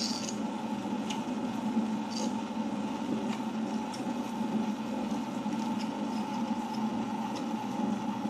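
Tabletop wet grinder running steadily, its stone rollers turning in the steel drum to grind soaked urad dal into idli batter. It gives a steady hum with faint clicks about once a second.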